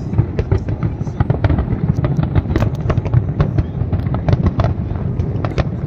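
Fireworks display: a rapid, irregular barrage of bangs and crackles, many per second, over a continuous low rumble.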